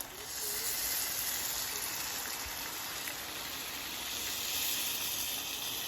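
Hot water poured into a pot of frying rice, hissing and steaming as it hits the hot oil and pan; the hiss sets in just after the start and holds steady.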